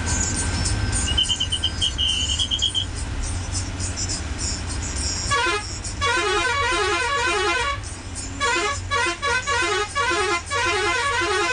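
A bus's multi-tone musical air horn sounding in repeated spells of rapidly alternating notes from about five seconds in, over the steady low drone of the Ashok Leyland bus's engine. A short run of high chirping notes sounds about a second in.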